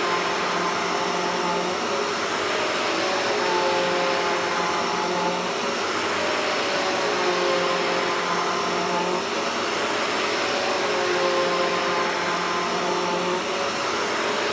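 Hoover Hushtone vacuum cleaner running at full power, its brush roll making a constant sound, pushed back and forth over carpet. The motor's pitch rises and falls with each stroke, about every three and a half seconds.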